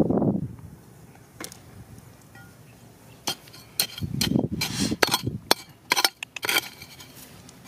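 A steel chisel bar jabbing and prying into crumbly rock and loose gravel: a run of sharp clinks and scrapes over about three seconds, after a single dull thump at the start.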